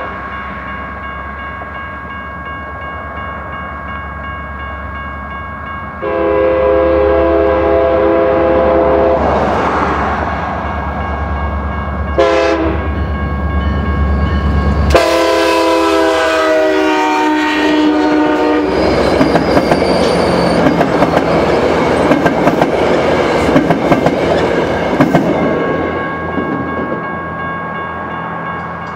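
New Mexico Rail Runner Express MP36PH diesel locomotive sounding its five-chime K5LA air horn as it approaches: a long blast, a short one, then a long one that drops slightly in pitch as the locomotive passes. The train's coaches then roll by with a steady rumble and sharp wheel clicks, fading near the end.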